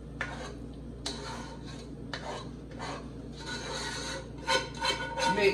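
Scraping and rasping as thick broccoli-and-cheese casserole mixture is worked out of a pot into an aluminium foil pan, with a few short knocks along the way.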